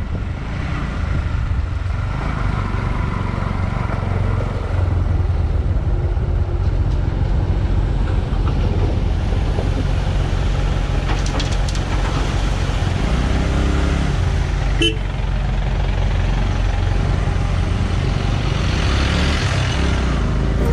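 Bajaj Pulsar NS125's single-cylinder engine running as the motorcycle rides over a freshly metalled, loose-stone road, a steady low rumble with road and wind noise. There is a brief short tone about fifteen seconds in.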